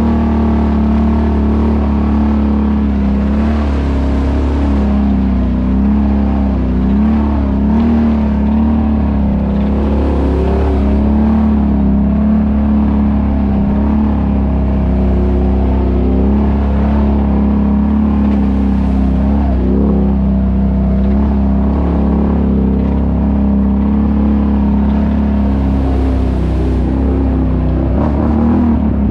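ATV engine running at a steady speed, a constant drone that wavers slightly and changes pitch near the end.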